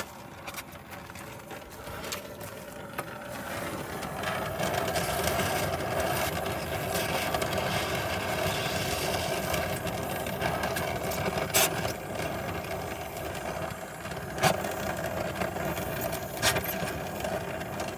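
Gas torch flame running steadily while it heats a seized steering linkage joint cherry red to break it loose; the steady roar builds over the first few seconds, with a few sharp clicks in the second half.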